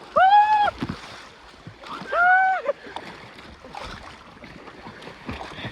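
Two loud, high-pitched shouts about two seconds apart, over a raft moving on a river with water splashing and sloshing.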